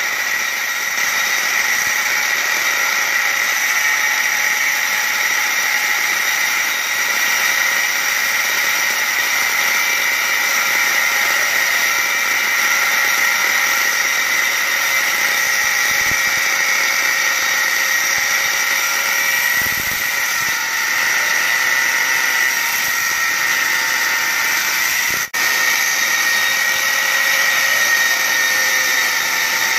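Electric angle grinder cutting into the steel wall of an LPG gas cylinder: a steady whine of the spinning disc over a gritty grinding hiss. The sound drops out for an instant once, near the end.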